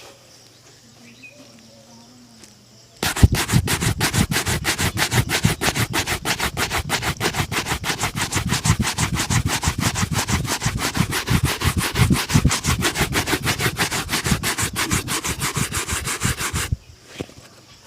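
Shoe being brushed in fast, even back-and-forth strokes, a shine brush rubbing over polished leather. It starts about three seconds in and stops shortly before the end.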